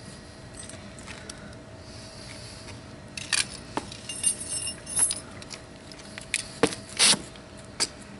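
A run of sharp clicks, knocks and light clinks of small hard objects being handled, starting about three seconds in after a quiet stretch.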